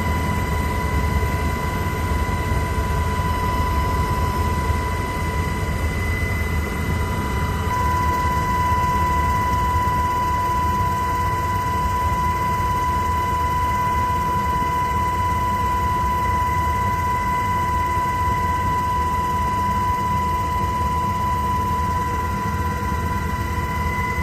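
Steady aircraft noise: a continuous low rumble under a steady high whine.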